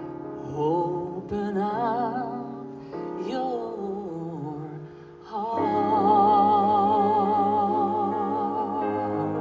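Song with keyboard accompaniment: a voice sings a few short phrases with wide vibrato, then holds one long wavering note from about halfway.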